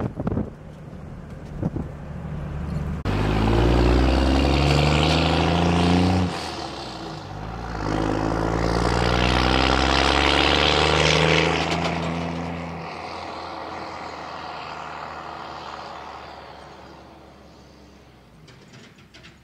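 Second-gen pickup truck accelerating away: engine pitch climbs for a few seconds, drops at a gear change, climbs again, then the sound fades steadily into the distance.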